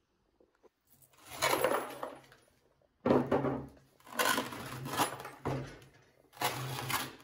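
The split halves of a granite boulder are pulled apart by hand, stone grating and scraping on stone in four rough rasps of about half a second to a second each. The second one starts with a sharp knock about three seconds in.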